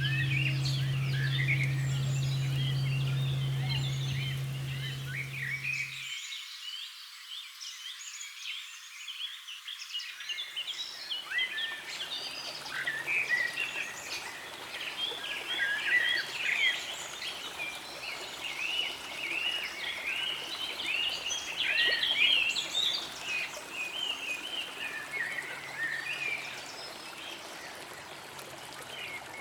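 Nature ambience: a dense chorus of short, high chirping animal calls. A bell's low, steady hum carries over at the start and cuts off suddenly about six seconds in.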